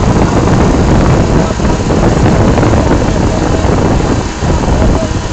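Tour boat's engine running steadily, with wind buffeting the phone's microphone in a dense, loud rumble.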